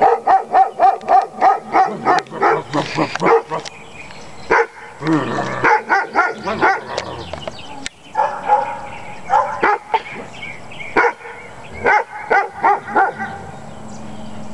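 Dog barking: a rapid run of short barks, about four a second, then further bouts of barking broken by short pauses.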